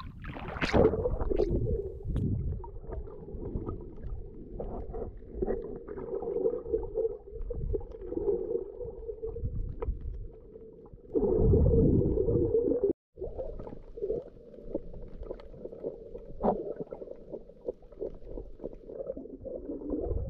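Muffled underwater sound from a camera submerged while snorkeling: low water rumble and sloshing with scattered faint clicks. It swells louder for a couple of seconds, then drops out for a moment about 13 seconds in.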